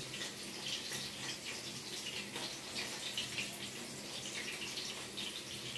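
Soft, wet squelching and crackling of minced meat being pressed and squeezed by wet hands around a metal kebab skewer, over a faint steady hum.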